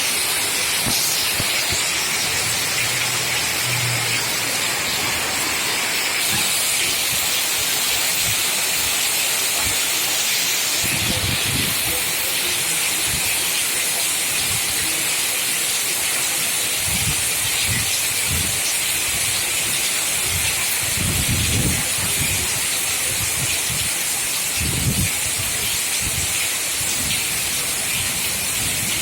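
Heavy rain pouring steadily in a strong wind, a dense even hiss, with low rumbling gusts several times in the second half.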